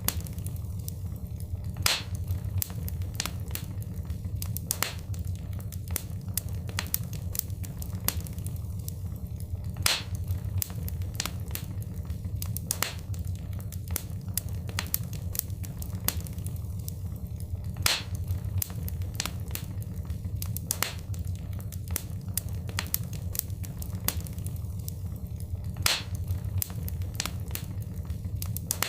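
Wood fire crackling, with many sharp pops over a steady low rumble. The same pattern of pops comes round again about every eight seconds: a looped recording.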